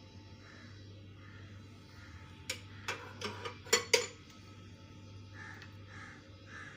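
Light taps and clicks of a teaspoon against a mixing bowl while vanilla essence is added, about five sharp taps between two and a half and four seconds in, over a steady low hum.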